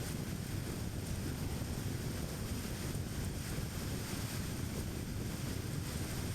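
Steady road noise of a car driving: a low tyre and engine rumble with wind hiss, unchanging throughout.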